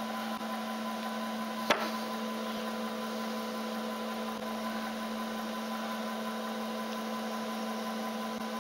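Vertical milling machine running steadily with a 5 mm carbide end mill in the spindle, a constant hum. A single sharp knock sounds about two seconds in.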